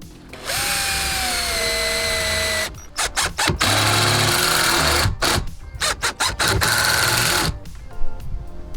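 Electric drill running in bursts: a first run of about two seconds whose pitch sags as it takes load, then a string of short trigger blips and two longer runs.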